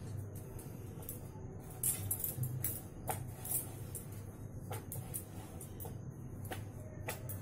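Wrist bangles clinking and jangling, with the wooden rolling pin working dough on a metal plate, as a roti is rolled out: a string of light irregular clicks over a low steady hum.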